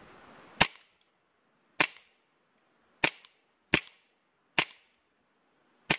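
CO2-powered airsoft Beretta M92 A1 pistol firing six single shots, spaced unevenly about a second apart. Each shot is a sharp pop followed closely by a fainter click.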